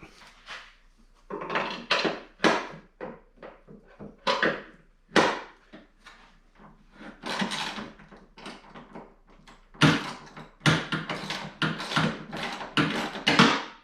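Hand tools undoing a snowmobile's rear suspension (skid frame) mounting bolts: a string of irregular clicks, clanks and rattles, coming thick and fast over the last few seconds.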